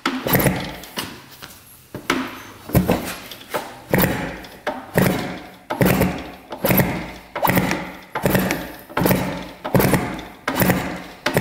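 A 1967 Yamaha YL1's small two-stroke twin being kicked over about once a second, each kick a sharp stroke that fades, with the engine turning over but not firing. There is no spark at the test plug.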